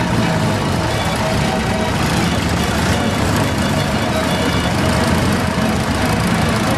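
Several vintage tractor engines running as the tractors drive slowly past, the nearest a small grey tractor passing close by. The engine sound is steady throughout.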